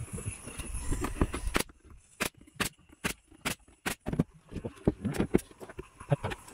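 Pneumatic nail gun firing six quick shots, about two or three a second, tacking a plywood board. Before and after the shots there are quieter handling knocks and rustles.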